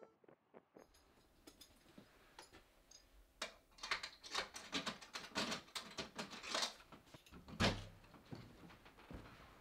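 A run of irregular clicks and rustles of someone moving about, then one heavier door thump about three quarters of the way through.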